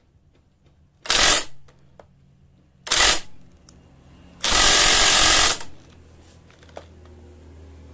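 Cordless impact wrench running in three short bursts of hammering: two brief ones, then a longer one of about a second. This is a test run of the tool after its damaged housing was repaired.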